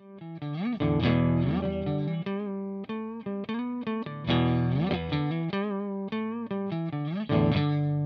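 Fender Jaguar electric guitar on its neck pickup, played through a Tech 21 Double Drive overdrive pedal into an Orange Rockerverb 100 MK II amp: an overdriven riff of separate notes with a few slides.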